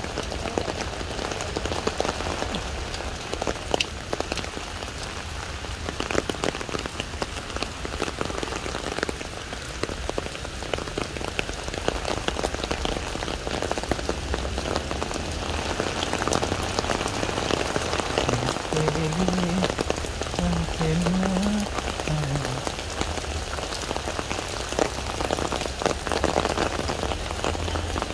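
Steady rain falling on a wet brick-paved walkway, a dense patter of drops.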